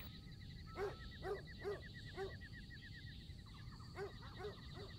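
Faint night ambience: an animal calling in short runs of brief pitched calls, about two a second, four in a row and then three more near the end. A faint, rapid, high chirring runs under the first few seconds.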